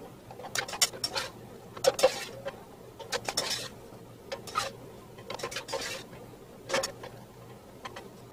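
Metal utensils scraping and clinking against a stainless steel skillet as ramen noodles and vegetables are tossed and mixed, in irregular scrapes and clatters every second or so.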